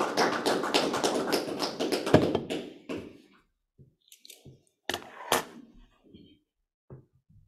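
Small audience applauding, the clapping fading out about three seconds in, followed by a few scattered knocks and light thumps, the loudest a little after five seconds.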